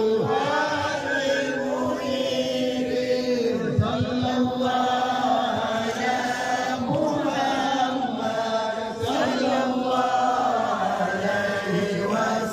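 A group of voices chanting an Islamic devotional chant in unison, a continuous melodic group chant.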